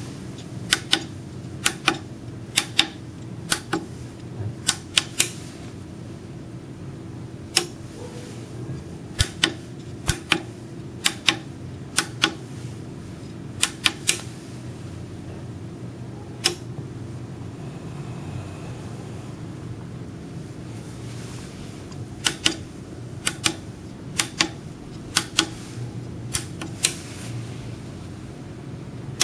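Small tactile pushbuttons on a 4x4 keypad being pressed, entering the digits of a lock code: sharp clicks in irregular runs, many in close pairs of press and release, over a steady low hum.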